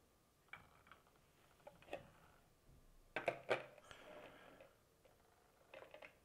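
Plastic toothbrush heads and a clear plastic holder and cover being handled on a table: scattered light clicks and taps, then a cluster of sharper knocks about three seconds in, followed by a short scraping rustle as the cover is fitted over the heads.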